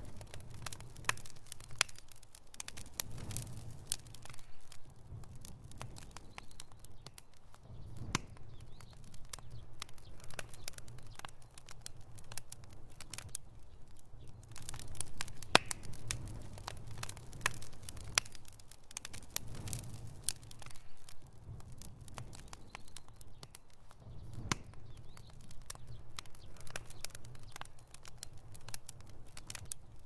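Split-log bonfire crackling with many irregular sharp snaps and pops, over a low rumble of burning that swells every few seconds.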